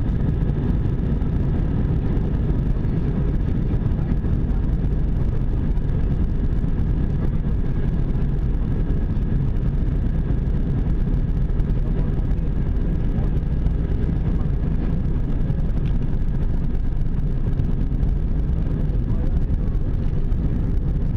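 Airbus A320 jet engines and airflow, heard inside the passenger cabin as a loud, steady low rumble with a faint whine above it, during take-off.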